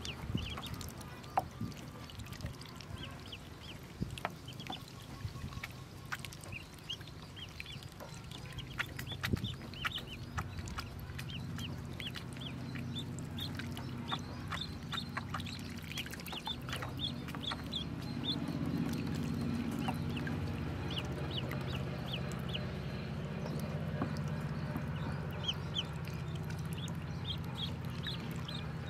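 A brood of Pekin ducklings peeping continually: many short, high calls overlapping, with scattered small clicks. Under them is a low background rumble that grows louder in the second half.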